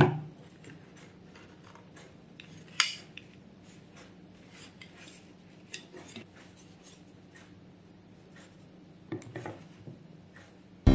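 Sparse handling sounds of a folded solid-wood table: light taps and knocks of the wooden boards against each other and the bench, with one sharper knock about three seconds in and a few more just after nine seconds.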